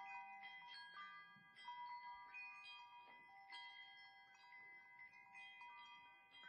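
Chimes ringing faintly: many overlapping bell-like notes, a new one starting every fraction of a second, each left to ring on.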